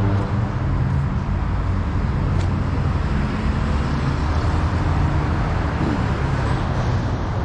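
Diesel semi-truck engine idling with a steady low hum.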